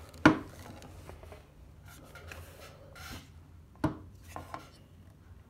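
Workshop handling noise: two sharp knocks of a tool or piece of wood being set down, about a quarter second in and near four seconds, with faint rubbing and scraping between them.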